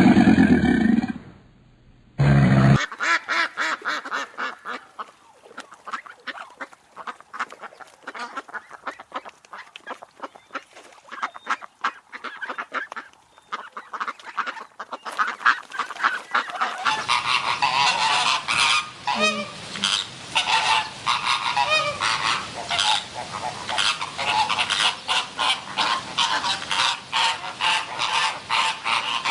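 A deep roar ends about two seconds in. A flock of guinea fowl then calls in a dense run of rapid, harsh cackles, growing louder and fuller partway through.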